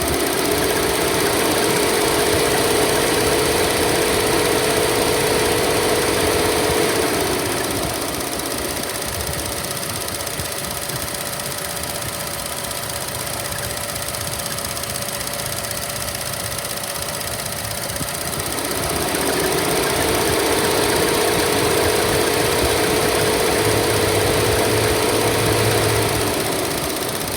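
2014 Chevy Sonic 1.4L turbo four-cylinder engine running with the air conditioning on. It is raised in speed and held for about seven seconds twice, settling back to idle in between. The test is meant to bring out a bird-like chirping squeal that occurs with the AC on.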